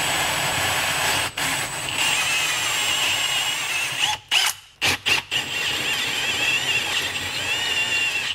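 Milwaukee Fuel cordless drill spinning a 2-inch hole saw, cutting through drywall and plywood, with a wavering high squeal from the saw from about two seconds in. The drill stops briefly a few times.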